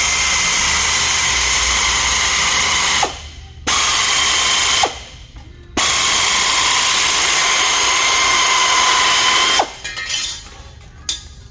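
Air-powered metal shears cutting sheet metal: a steady, high whining run in three spells, a long one, a short one of about a second, then a long one of nearly four seconds that stops near ten seconds in.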